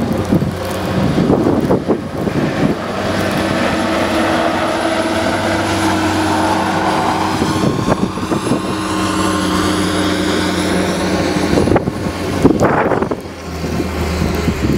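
Diesel engine of a CAT 950G wheel loader running steadily under load as the loader passes close by while plowing snow. Its engine note drops away about three-quarters of the way through, and wind gusts buffet the microphone near the end.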